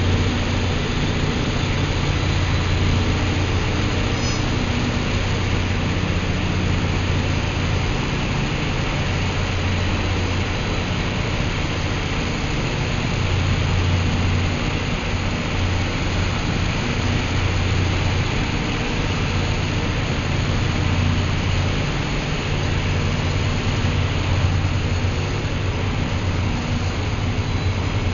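Canadian Pacific track repair train running past: a steady, dense hiss over a low droning hum that swells and dips.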